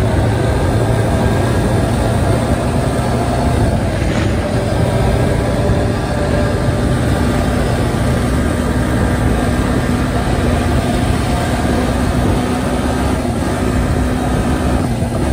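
Dirt bike engine running steadily at speed, with wind rumbling heavily on the microphone.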